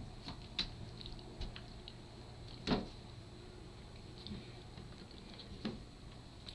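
Kittens playing on a carpeted floor: scattered light taps and soft knocks over a faint steady hum, with a louder thump about two and a half seconds in and another near the end.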